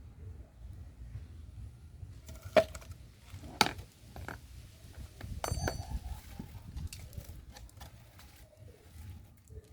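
Two sharp knocks, then a short clatter with a brief metallic ring, among quieter clicks of small parts and tools being handled.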